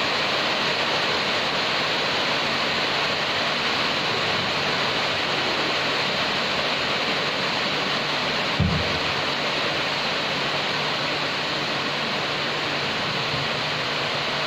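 Rain pouring steadily, a dense even hiss, with a brief low thump a little after halfway through.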